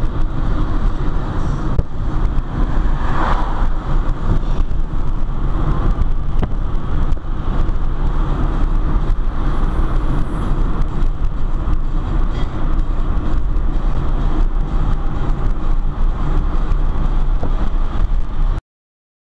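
Car driving along a road, heard from inside the cabin: steady engine and road noise with a strong low rumble, cutting off suddenly near the end.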